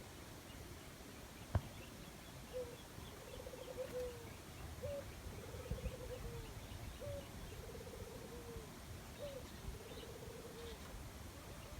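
A dove calling repeatedly: each phrase is a short upward note followed by a low rolling, trilled coo, repeated about every two seconds. A single sharp click comes about a second and a half in, before the calling starts.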